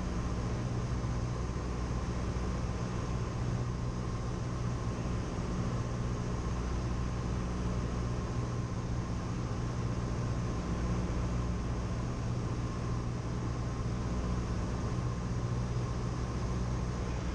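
Steady drone of a Cessna 172M's four-cylinder engine and propeller in flight, unchanging in pitch and level, with a faint steady high tone underneath.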